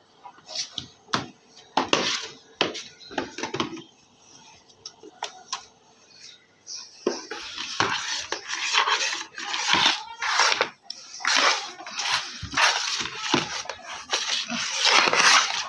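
Broom sweeping a hard tiled floor: a run of short brushing strokes, a pause of a couple of seconds, then a faster, denser run of strokes from about seven seconds in.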